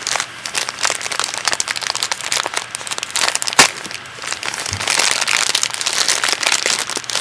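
Packaging crinkling and rustling in irregular crackles as a bag of cosmetic samples is opened and handled, with one sharper click about three and a half seconds in.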